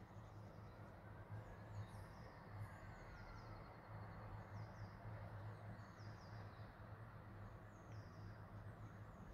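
Faint, steady hiss of light rain, with small birds chirping in short, high, falling phrases several times throughout.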